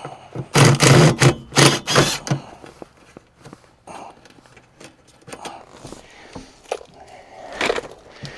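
A burst of loud knocking and rubbing from about half a second to two seconds in, then scattered small clicks, rattles and scrapes of hand work and handling in a truck cab.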